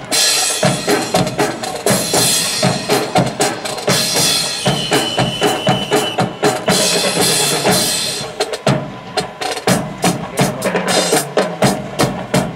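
Drum line playing a marching cadence on snare and bass drums, dense with sharp clicking strokes, with a bright hissing wash over roughly the first eight seconds.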